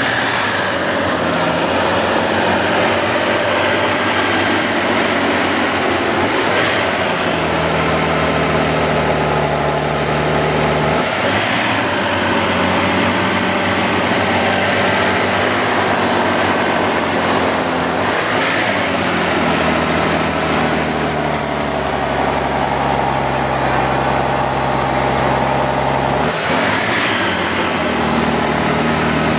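Trial race truck's diesel engine working hard under load as the truck crawls over rough, steep ground, pouring black smoke. The engine note holds steady for several seconds at a time, then drops and rises again a few times as the revs change.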